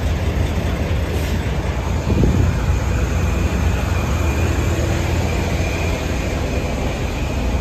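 Steady low rumble of heavy vehicle noise, with a faint steady high whine above it.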